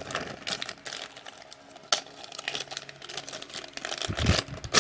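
Small packaging being handled and opened by hand: scattered light clicks, taps and crinkles.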